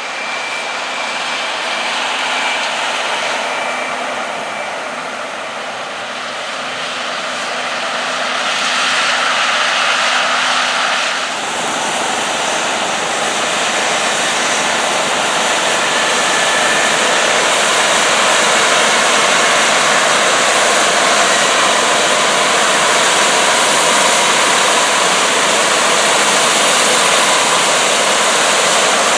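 John Deere combines harvesting soybeans, their engines and threshing machinery running as a steady loud drone. It grows louder over the first ten seconds and changes abruptly about eleven seconds in.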